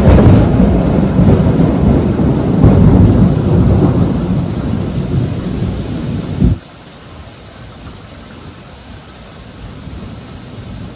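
A loud thunderclap breaks right at the start and rumbles deeply for about six seconds before stopping abruptly, over the steady hiss of heavy rain, which carries on alone afterwards.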